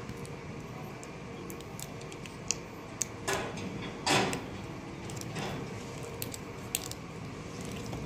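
Light clicks, ticks and rustling of enamelled copper winding wire being pressed by hand into the paper-lined slots of an electric motor stator during rewinding, with two louder scraping swishes about three and four seconds in, over a steady low hum.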